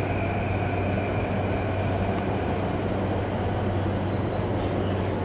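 Electric commuter train at the station platform, its equipment giving a steady low hum over a noisy rumble, with a faint higher whine that fades out about two seconds in.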